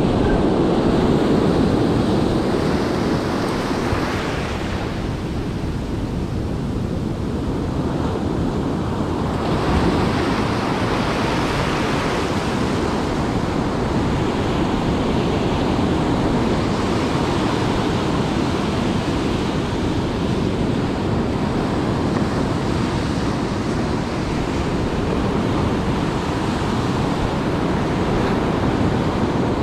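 Ocean surf breaking and washing up over beach sand: a continuous rushing hiss that swells as each wave runs in.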